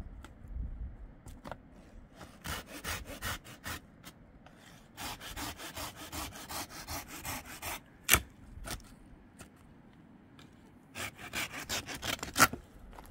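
A knife blade worked back and forth into a dry stick of firewood, rasping in quick repeated strokes in three bouts, with a single sharp knock about eight seconds in.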